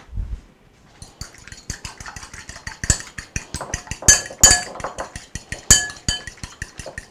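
An egg being beaten in a small bowl: quick, light clinks of the utensil against the bowl, several a second, with a few louder ringing strikes around the middle.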